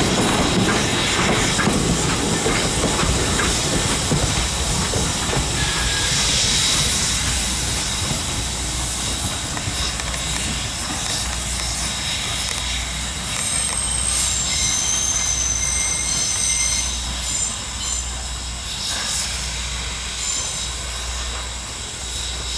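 Norfolk and Western No. 475, a 4-8-0 steam locomotive, rolling past with its tender's wheels and running gear clattering over the rails. It is loudest in the first few seconds and then fades as it moves away. In the second half there are high-pitched wheel squeals on and off as it takes the curve.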